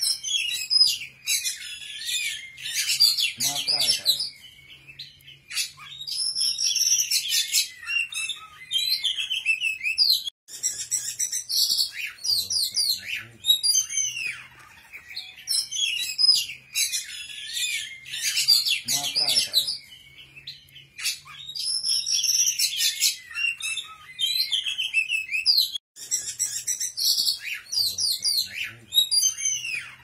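A songbird singing a fast, high-pitched, varied song of chirps, whistles and trills with brief pauses. The same passage repeats about every 15 seconds, as in a looped bird-song training recording (masteran) used to teach caged songbirds.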